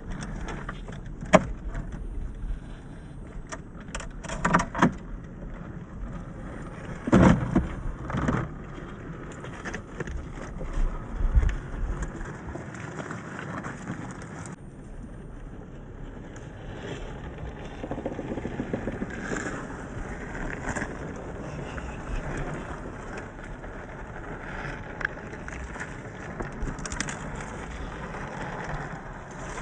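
Axial SCX10 III 1/10-scale RC crawler driving over rough ground: a steady crunching of tyres on dirt and stones, with sharp knocks as the truck bumps over obstacles, the loudest about seven seconds in.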